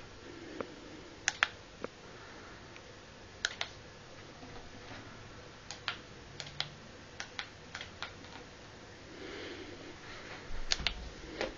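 Irregular light clicks and taps, singly or in quick pairs and small clusters, over a faint steady hum.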